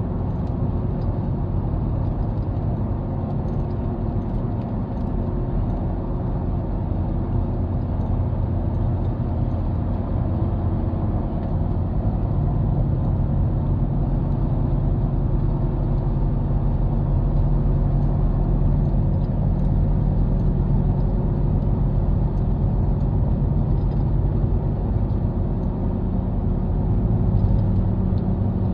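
Steady low rumble of a car's engine and tyres heard from inside the cabin while driving at highway speed.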